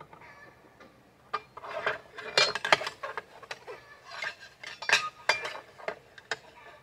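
Irregular metal clinks and knocks from a chop saw's head and fittings being handled while its bevel angle is set.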